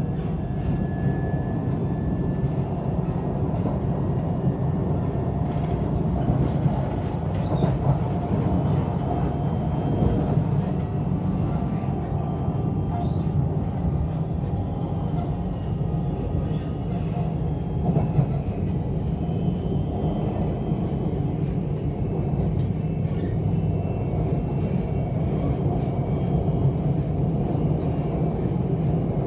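Malayan Railway ETS electric train running at speed, heard from inside the passenger car: a steady rumble of wheels on the track, with an occasional short knock.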